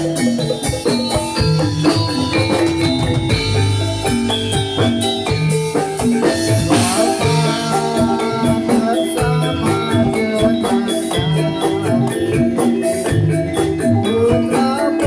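Javanese gamelan music accompanying a Jathilan dance, played loud through a sound system: metal-keyed instruments strike quick, repeated ringing notes over drumming.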